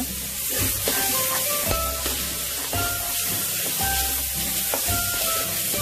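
Onion-tomato masala with freshly added coriander and mint leaves sizzling in oil in a metal pressure-cooker pot, a spatula stirring and scraping against the pot's sides. Background music with held notes and a steady bass plays along.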